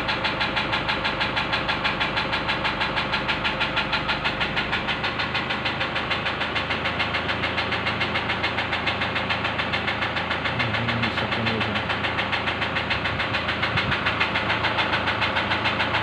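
Toyota Hilux diesel engine idling with a steady, rapid knock pulsing several times a second. The knock comes from a damaged number 1 injector, whose feedback reading is out of range.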